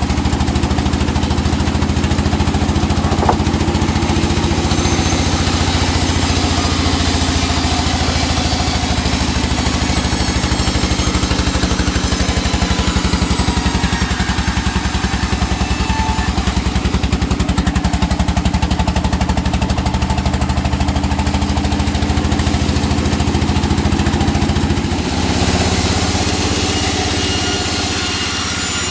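Engine of a sawmill running steadily while teak is sawn, its note shifting about 25 seconds in.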